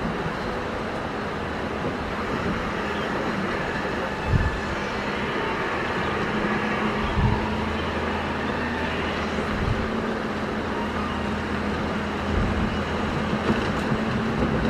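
Caterpillar 320 excavator's diesel engine running steadily under work, with a few short low thumps.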